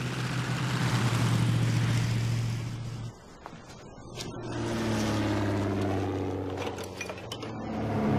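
Light single-engine propeller plane flying low overhead with a steady engine drone. It drops away about three seconds in, then swells back up as the plane passes over again.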